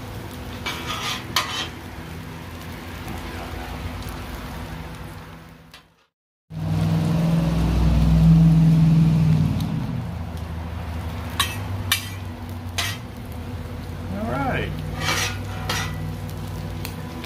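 Chopped bacon sizzling on a Blackstone flat-top griddle, nearly crisp, while metal spatulas scrape and click against the steel as it is stirred. The sound drops out for a moment about six seconds in, followed by a few seconds of louder low rumble.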